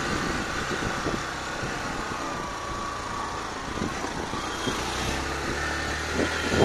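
Motorcycle engine running steadily as the bike climbs a steep dirt road, while a small hatchback car passes close alongside.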